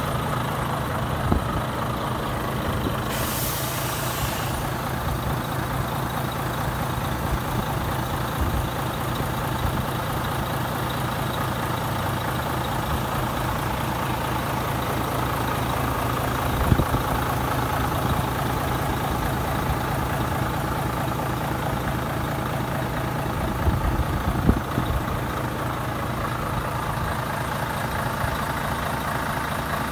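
Volvo FH500's 13-litre straight-six diesel idling steadily. About three seconds in, a short burst of air hiss from the truck's air system, with a few light knocks later on.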